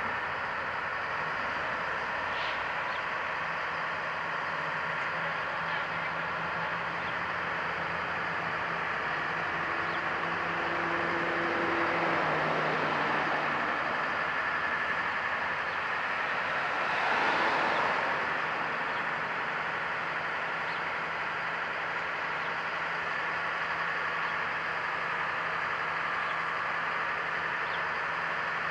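Diesel engines of the mobile cranes running steadily with a low hum, one engine's pitch shifting about a third of the way in and a short louder swell a little past the middle.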